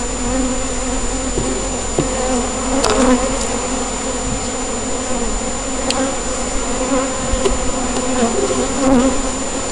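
Honeybee colony buzzing steadily over the open hive's frames, a dense continuous hum, with a few light clicks.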